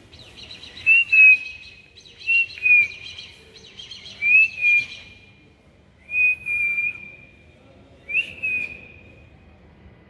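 Black kite calling five times, about every two seconds: shrill, quavering whistles, each a short rising note that falls away into a longer trailing note.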